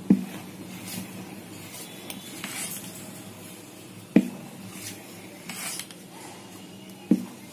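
Metal spoon stirring thick fermented idli batter in a steel bowl, with wet swishing strokes. The spoon knocks sharply against the bowl three times: at the start, about four seconds in, and near the end.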